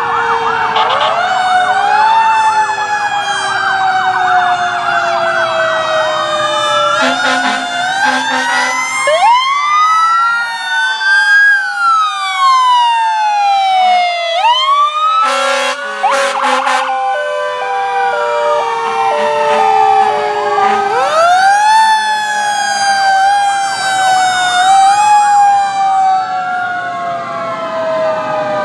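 Several fire apparatus sirens sounding over one another: electronic sirens wailing and yelping, and one siren winding slowly up and down. Short horn blasts cut in about seven seconds in and again around sixteen seconds.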